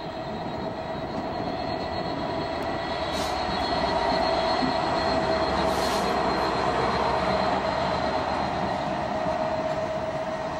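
EWS Class 66 diesel-electric locomotive, with its two-stroke V12 engine, passing close by at the head of a train of MGR coal hopper wagons, then the hoppers rolling past. The rumble swells to its loudest about four to eight seconds in as the locomotive crosses, over a steady whine held throughout.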